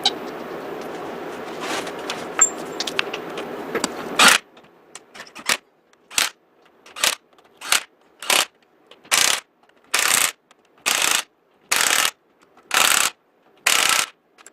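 Power impact wrench running lug nuts onto a pickup's wheel in about a dozen short bursts, roughly one a second, the later bursts longer as the nuts seat. Before that, a steady hum with a few metallic clicks, which cuts off sharply.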